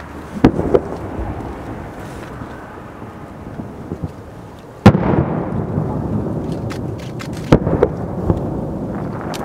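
Aerial firework shells bursting: several sharp bangs, the loudest about five seconds in, each followed by a long rolling echo. Two quick bangs come near the start and another pair a couple of seconds before the end.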